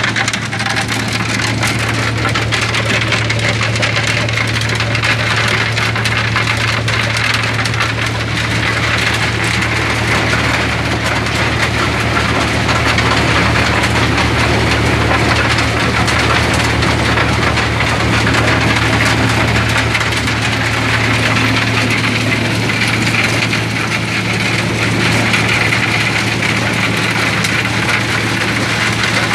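Stone crusher running: a steady low drone from its drive, with a continuous dense clatter and crackle of rock being broken and falling through the machine.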